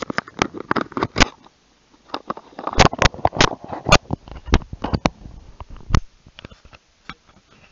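Handling noise from a handheld camera: irregular clicks, knocks and rubbing as fingers grip and shift against the camera near its microphone, thinning out to a few faint ticks near the end.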